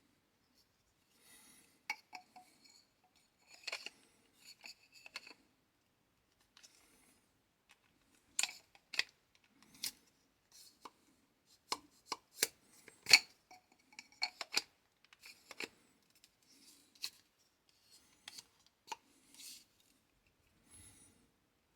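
A hand tool's mechanism being worked by hand: irregular sharp clicks and clacks, some in quick pairs and clusters, the loudest near the middle, with faint handling rustle between.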